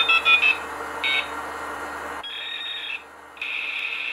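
Electronic beeping over a steady high buzzing tone. A quick run of short beeps comes at the start and one more about a second in. The tone then quietens, cuts out briefly near the end and comes back.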